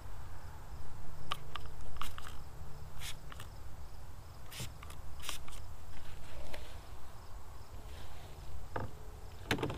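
Trigger spray bottle of ceramic spray coating spritzing onto ATV plastic fenders, several short hisses in the first five seconds or so, over a steady low rumble.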